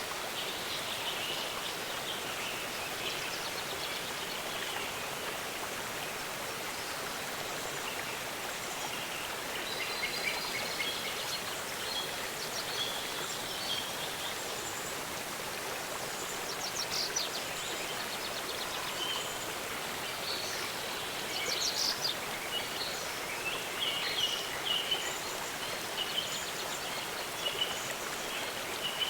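Steady rushing of a waterfall, with small birds chirping and trilling over it: scattered short calls throughout, and a few quick trills in the second half.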